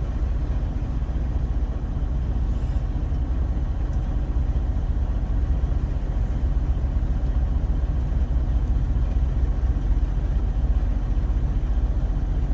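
Truck engine idling steadily with a deep, even rumble.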